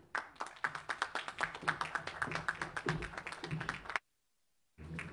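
People clapping in applause, many irregular sharp claps, cut off abruptly about four seconds in.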